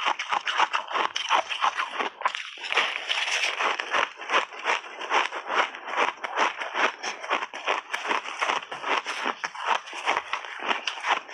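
Frozen mixed-berry ice balls crunched and chewed between the teeth: a continuous run of sharp, crackling crunches, several a second.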